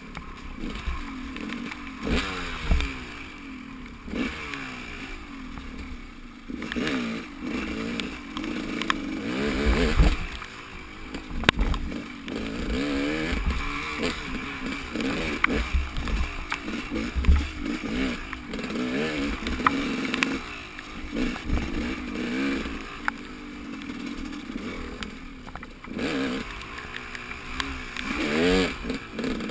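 Motorcycle engine running while riding, its pitch rising and falling again and again as the throttle is worked, with scattered clicks and rattles.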